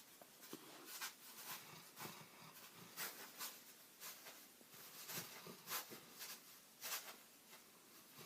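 Great Dane puppy snoring in its sleep: a faint string of noisy, hissing breaths, some close together in pairs.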